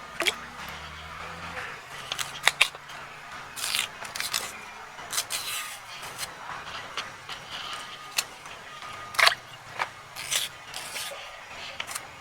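Irregular handling sounds: scattered sharp clicks and short scrapes, the loudest a quick pair about two and a half seconds in and another about nine seconds in.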